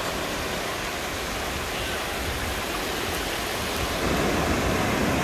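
Ocean surf washing in over a shallow sandy beach, a steady rushing hiss that grows a little louder about four seconds in.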